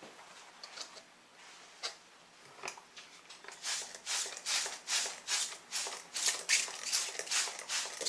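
Trigger spray bottle misting water onto a paper towel laid over seeds: a quick run of short hissing squirts, about two or three a second, starting about halfway through. Before that there are a few light ticks and paper rustles.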